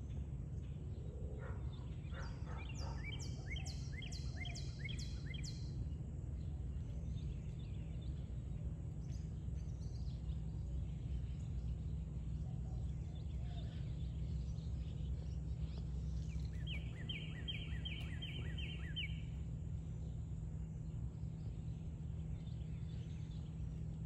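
Steady low outdoor background rumble, with two runs of a small songbird's quick repeated clear whistles, each note sliding down in pitch, about eight notes in each run: the first run comes about three seconds in and the second about seventeen seconds in.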